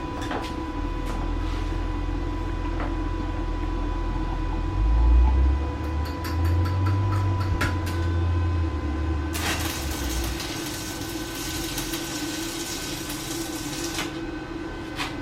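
A heavy truck's diesel engine rumbling nearby, shifting in pitch and loudest about five seconds in, then a hiss lasting about four seconds from around nine seconds in.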